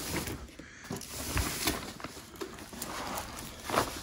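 Plastic wrapping rustling and crinkling as a large projector is turned around by hand on a plastic packing sheet, with a few light clicks and knocks of handling.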